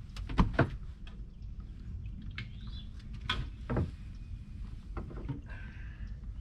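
A few sharp knocks and thumps in a small fishing boat, two close together about half a second in and two more a little past three seconds, over a steady low rumble.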